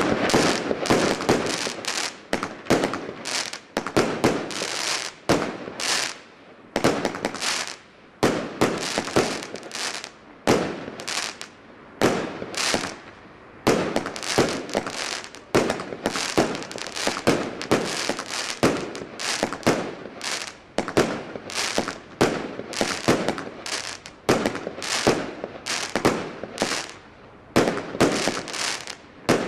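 A 49-shot consumer fireworks cake firing continuously: shells bursting with sharp bangs in quick succession, about one to two a second, with crackling after some bursts.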